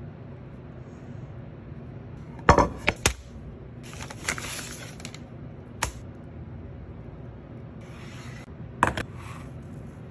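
Food-prep handling sounds on a wooden cutting board: a few sharp knocks and clacks in two quick clusters, a couple of seconds in and again near the end, with short scraping or rustling sounds between them.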